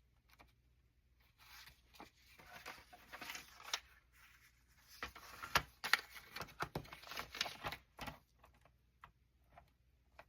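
Paper being handled and cut with scissors: irregular rustling with many small clicks and snips, thinning out to a few light ticks near the end.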